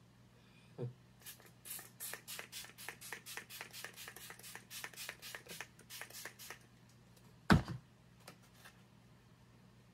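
Iconic London Prep-Set-Glow setting mist spritzed from its pump spray bottle over and over, about four quick hissing sprays a second for some five seconds. A single loud thump follows near the end.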